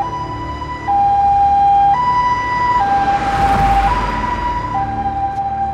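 Ambulance two-tone siren switching between a high and a low note about once a second. A rush of the vehicle driving past swells and fades about halfway through.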